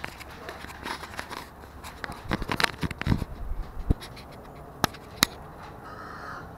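Handling noise from a camera being moved about: irregular scratching and scraping with a flurry of clicks and knocks in the middle, then two sharp clicks.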